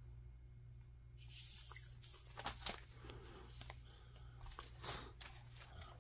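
Hands handling a cardboard board book: soft rustling and sliding against a cloth surface from about a second in, with a few light taps and knocks as the book is turned over, set down and its cover opened.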